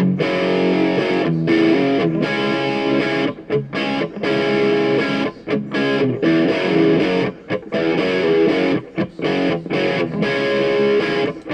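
Outro music led by a distorted electric guitar, with strummed and picked chords broken by short stops.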